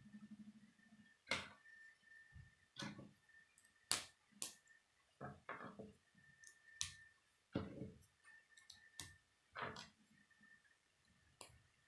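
Plastic K'nex rods and connectors clicking together and knocking on a wooden table while a model is assembled by hand, in about a dozen irregular sharp clicks and taps.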